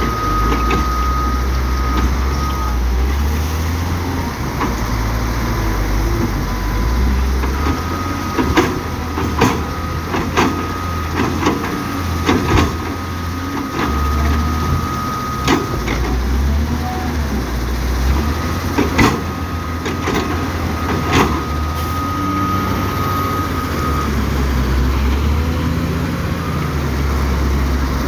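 Heavy diesel engines running under load as a wheel loader tips and pats down crushed stone in a dump truck's body. Several sharp clanks and knocks of the bucket and stone striking the steel body come in the middle stretch. A high steady tone sounds on and off over the engine noise.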